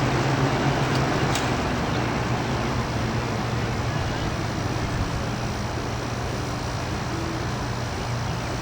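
Electric box fans running: a steady rush of moving air with a low motor hum, easing off slightly.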